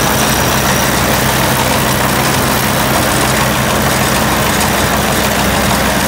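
New Holland BR770A round baler running empty on tractor power, freshly rebuilt with new belts, drive roller and bearings, its belts and rollers turning with a steady mechanical noise. The tractor engine drones steadily underneath.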